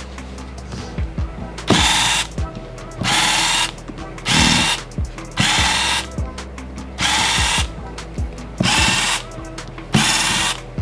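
Electric precision screwdriver whirring in short bursts, about seven in all, each under a second, as it backs the small screws out of a Samsung Galaxy J7 Pro's frame. Light clicks fall between the bursts.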